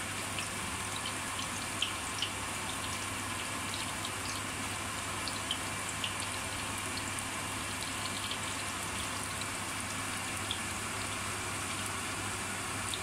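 Spinach pakoras deep-frying in well-heated oil: a steady sizzle with scattered small pops and crackles.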